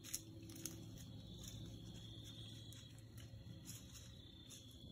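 Quiet woodland ambience: a faint steady insect hum with a few soft ticks and rustles scattered through it.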